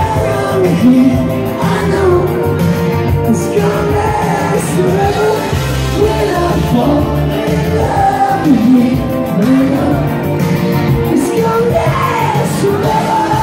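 A man singing live into a handheld microphone over loud amplified backing music with a steady beat.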